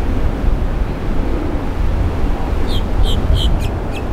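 Deep, steady rumble of the Blue Angels' C-130J Hercules's four turboprop engines as the aircraft climbs away after takeoff. Five short, high chirps come in the last second and a half.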